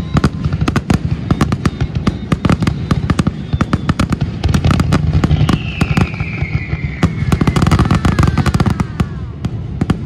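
Fireworks shells bursting in a rapid, unbroken barrage of bangs. A long falling whistle runs through the second half.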